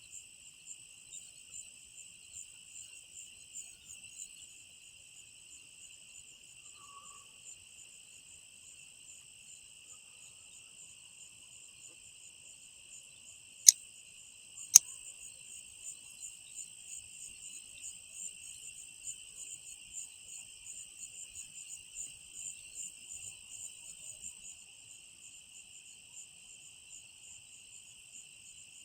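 A steady chorus of night insects chirring in a fast, even pulse. Two sharp cracks about a second apart come just before the middle, much louder than the chorus.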